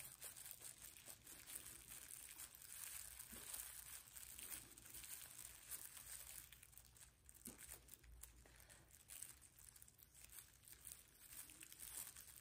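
Near silence: faint room hiss with a few soft, scattered ticks.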